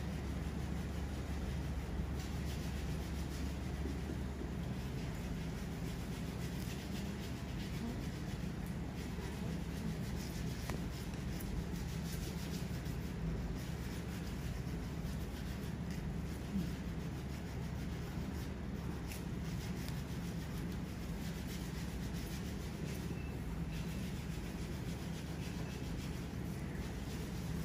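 Nail files and a foot file rubbing and scraping on nails and skin during a manicure and pedicure, over a steady low hum.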